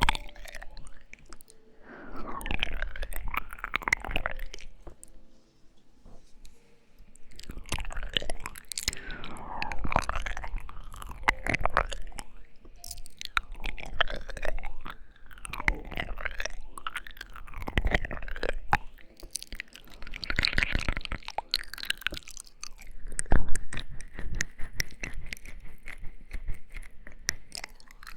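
Close-miked ASMR mouth sounds: wet lip smacks, tongue clicks and kissing noises coming in clusters every couple of seconds, with a short pause a few seconds in.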